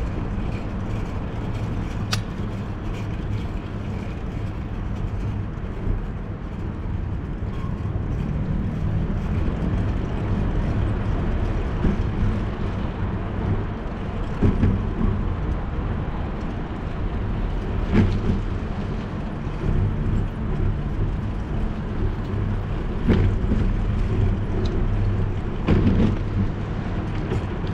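Steady wind and road rumble from a bicycle in motion, picked up by a camera mounted on the bike. Several sharp knocks come through as the bike rolls over bumps and cracks in the road.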